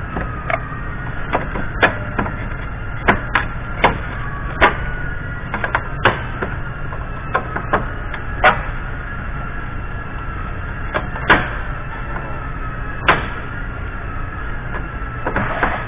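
Scattered sharp clicks and knocks from hand tools and parts being handled during work on a pickup's front end, over a steady shop hum with a faint whine.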